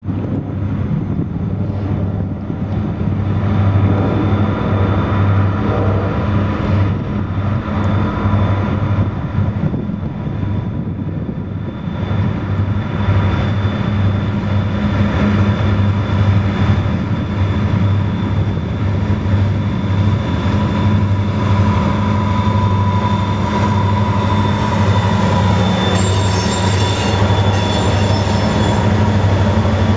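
Diesel locomotive engine sound of approaching Soo Line SD40 units: a steady low drone, with a thin high tone coming in about two-thirds of the way through.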